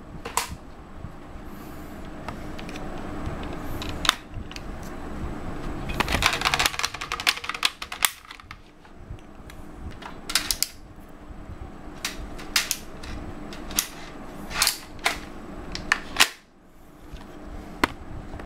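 Plastic clicks, snaps and rattles of a Buzz Bee Double Shot toy foam-dart blaster being handled and loaded with darts. A dense run of clicking comes about six seconds in, and a few sharper single snaps follow later.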